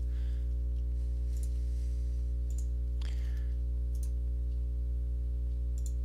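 Steady low electrical hum, with a few faint computer mouse clicks scattered through it.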